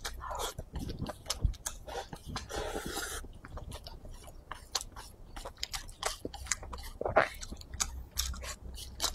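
Close-miked chewing of a mouthful of rice in yellow braised sauce, with many small wet clicks and lip smacks. A short hiss-like rush of noise comes about two and a half seconds in.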